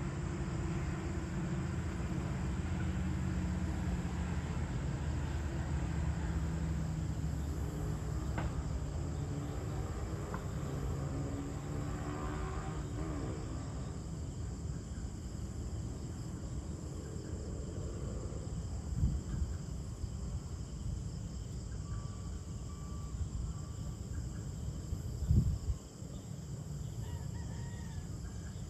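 Evening ambience with a rooster crowing about ten seconds in, over a low engine rumble that fades by the middle, while crickets and other insects chirr steadily. A short dull thump near the end is the loudest sound.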